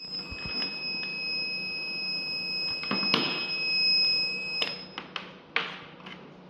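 An electronic buzzer sounding one steady, high-pitched beep for about four and a half seconds, then cutting off abruptly. Several sharp clicks and knocks are mixed in as the battery and charger plug are handled.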